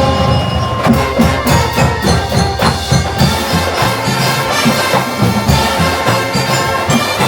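Drum and bugle corps playing a pop-song medley: bugles and other brass sustain chords, and the drum line comes in about a second in with a steady beat.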